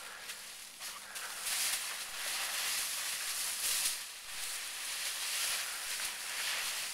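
Dry fallen leaves rustling as a Labrador retriever noses and burrows through a deep pile of them, louder in two spells in the first half and near the end.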